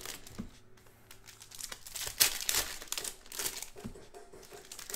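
Plastic-foil wrapper of a Panini Prizm basketball card pack being torn open and crinkled by hand, in a run of crackly bursts loudest about two seconds in.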